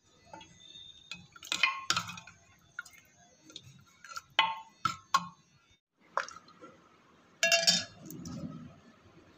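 Metal ladle clinking and scraping against the side of a metal cooking pot as it stirs a thick curry, giving a run of sharp, irregular clinks.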